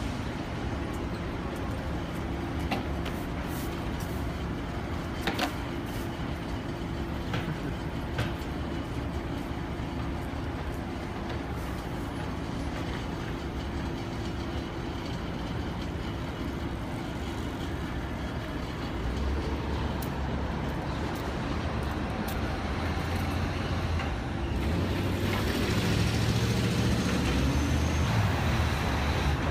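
City street traffic noise: a steady engine hum with a few sharp clicks in the first ten seconds. From about two-thirds of the way through, heavier traffic rumble builds and grows louder toward the end, as a vehicle draws near.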